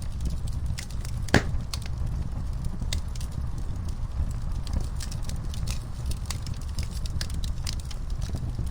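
Wood fire crackling in a fireplace: scattered sharp pops and snaps over a steady low rumble, with one loud pop about a second and a half in.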